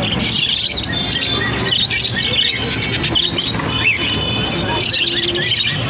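Several parrots chirping at once, with many quick, overlapping chirps and short whistles in a steady chatter.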